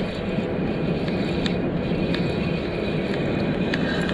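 Steady wind rumble on the microphone, with the faint whir and light ticking of a spinning reel being cranked by hand to retrieve the line.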